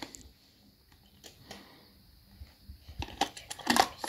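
Small die-cast toy car clicking and rattling against the plastic cab of a Hot Wheels Mega Truck as it is fitted into place, with a quick cluster of clicks about three seconds in.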